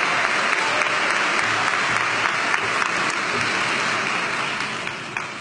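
Audience applauding steadily, the clapping fading away near the end.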